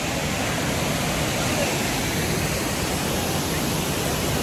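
Waterfall running high with rainy-season water: a steady, unbroken rush.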